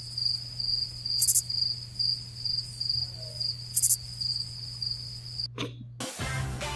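Cricket chirping sound effect: an even, pulsing high trill over a low hum, with two short high hisses, about a second in and near four seconds. It cuts off sharply near the end and music starts.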